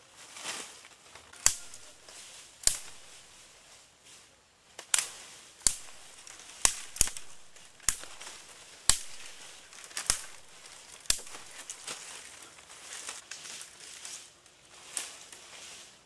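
A series of about a dozen sharp cracks or knocks at uneven intervals, roughly one a second, over faint rustling.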